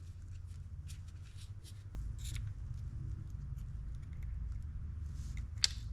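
Light clicks and rubbing as small fishing-reel parts are handled and wiped clean of old grease, with one sharper click near the end, over a low steady hum.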